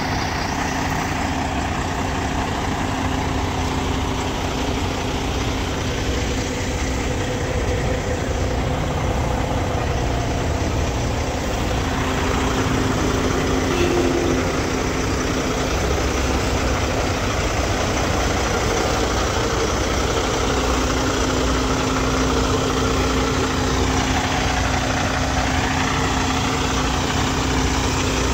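Diesel engine of a Kenworth T880 truck, a 500 hp Cummins X15, idling steadily with an even low rumble and a constant hum.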